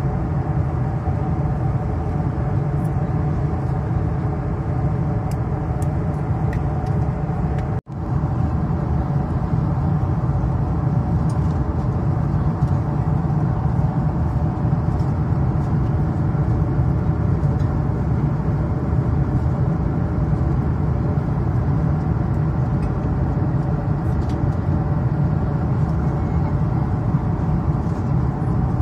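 Steady cabin noise inside a Boeing 747-8 Intercontinental airliner: jet engine and airflow noise, a deep, even rush with a faint steady hum in it. The sound breaks off for an instant about eight seconds in.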